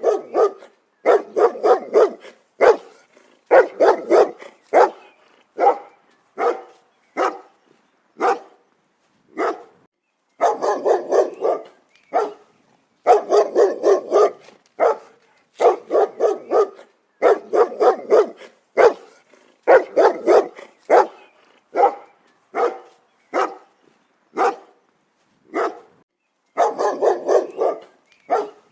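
Dog barking loudly and repeatedly, single barks and quick runs of several barks with short pauses between.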